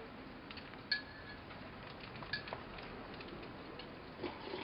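Scattered light ticks and clicks of small hard impacts over a faint steady hiss. The loudest comes about a second in, and two of the clicks ring briefly. A small cluster of knocks comes near the end.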